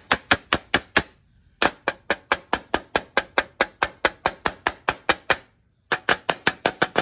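Paper air-filter element from a Kawasaki FS600V mower engine being tapped rapidly on concrete, about five sharp knocks a second in three runs with two short pauses, shaking packed dust out of the clogged filter.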